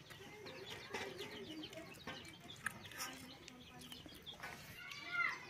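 Birds chirping in short repeated calls, with a few faint clicks.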